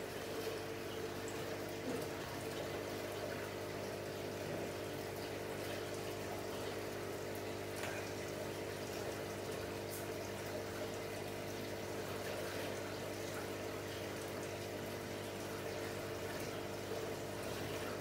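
Aquarium filter pump running steadily, a constant hum of several steady tones under moving water.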